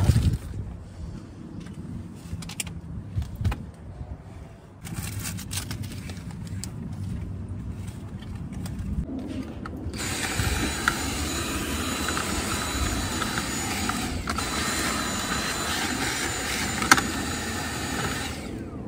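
Plastic bag rustling and items being handled for several seconds, then a Dyson cordless stick vacuum switches on about ten seconds in and runs with a steady high whine while vacuuming a car seat, with a single sharp knock near the end before it cuts off.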